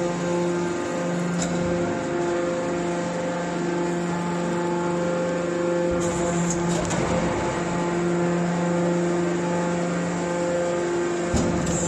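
Compact scrap metal baler's power unit running steadily with a droning hum, with a sharp metallic knock near the end.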